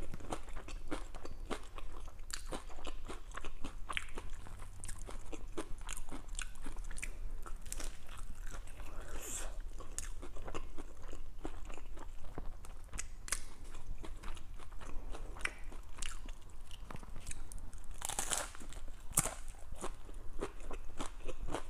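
Close-up crunching and chewing of a Taco Bell Doritos Locos hard taco's nacho-cheese shell, a dense run of small sharp crunches, with two louder, longer crunches about halfway through and near the end.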